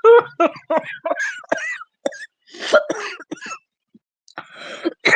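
A smoker's cough: a person coughing and clearing their throat in a run of short, voiced bursts, with more coughs about three seconds in. It is the chronic cough of long-term smoking.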